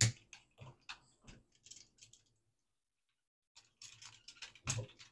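A sharp snip as scissors cut a plastic zip tie off the float-sensor wires, then scattered light clicks and ticks of the plastic fuel pump assembly and wires being handled. A pause of about a second and a half follows, then another cluster of clicks with a louder one near the end.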